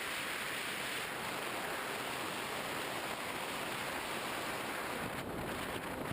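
Steady rushing wind noise from airflow over the onboard camera of a flying Skywalker FPV model plane, turning gustier and more buffeting about five seconds in.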